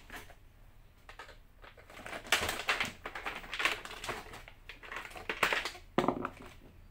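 Plastic clicks and scraping from a KYT racing helmet's visor as it is unlatched from its side pivot mechanism and lifted off: a run of sharp clicks and rattles starting about two seconds in.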